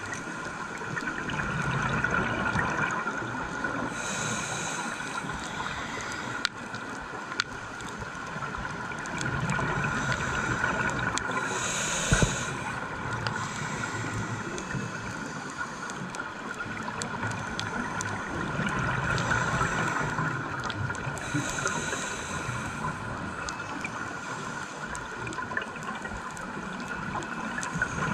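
A scuba diver breathing through a regulator, heard underwater through a camera housing: swelling rushes of exhaled bubbles every several seconds over a steady hum.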